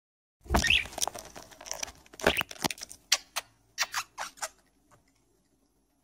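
Pets nibbling and tugging at fresh grass stalks, making crisp crunches and rustles. A dense run of crunching starts about half a second in, then breaks into separate sharp crunches that stop about a second before the end.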